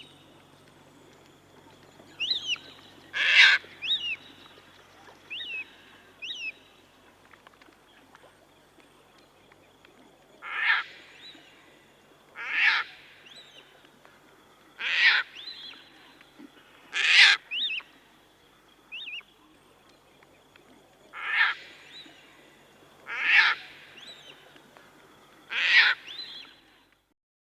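Rainforest birds calling: loud, harsh calls repeated about eight times, one early and then every couple of seconds in the second half, with smaller high chirps in between.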